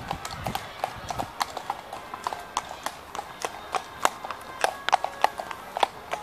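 Hooves of several led ponies clip-clopping at a walk on a paved path, with sharp, uneven hoofbeats at about three or four a second.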